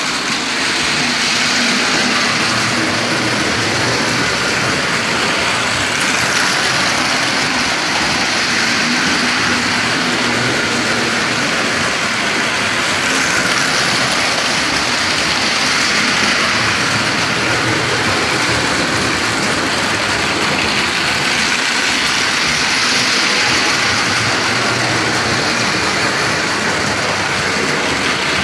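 Ives No. 3235 standard gauge electric locomotive hauling Lionel freight cars over three-rail tinplate track: its motor and the wheels rolling on the rails make a steady whirring run that swells and eases a little now and then.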